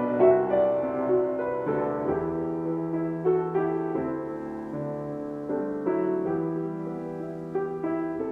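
Slow, gentle piano music: chords and melody notes struck and left to ring, gradually getting softer.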